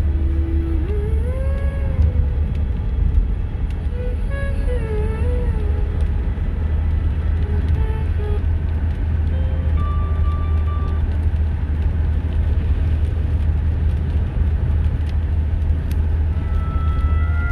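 Steady low rumble of a car's engine and tyres heard from inside the cabin while driving. Faint snatches of music or a melody come in about a second in and again around four seconds.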